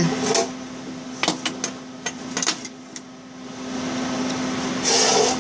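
Light metallic clicks and knocks as a welding ground clamp and a steel fuel rail are handled and set on a steel welding table, over a steady hum, with a short hiss near the end.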